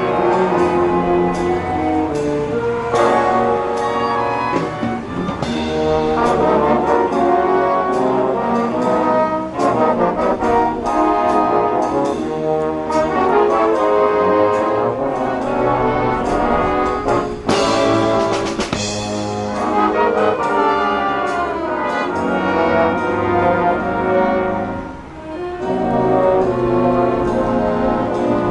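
High school marching band playing live, brass-led with trombones and trumpets over steady percussion.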